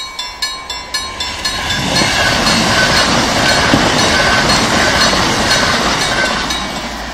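Level-crossing warning bell ringing at about four strokes a second. About two seconds in, a Pendolino high-speed train passes at speed, a loud rush of wheel and air noise that covers the bell and fades near the end.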